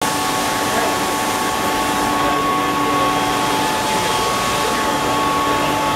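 LeBlond 4025NK gap-bed engine lathe running at 250 RPM: a steady mechanical hum with several held tones over a hiss. The lowest tone drops out for about a second in the middle.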